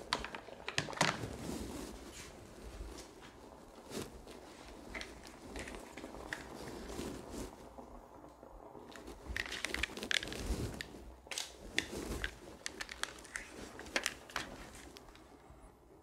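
Equipment being handled: scattered small clicks, taps and rustles, fairly quiet.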